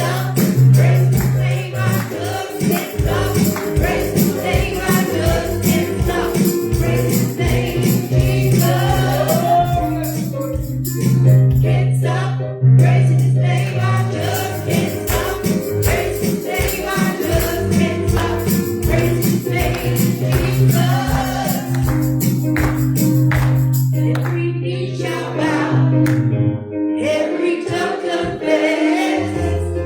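Live gospel worship music: several voices singing together over a band, with a steady bass line and a regular beat.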